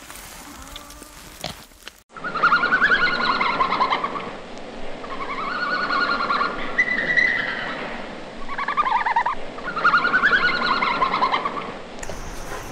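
Red panda calling: a series of high, wavering calls in about five bouts, starting suddenly about two seconds in.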